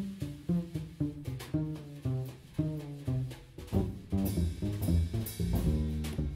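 Live jazz: an upright double bass plays a run of plucked notes with a drum kit behind it. From about four seconds in the drums and cymbals grow busier and the bass line gets denser.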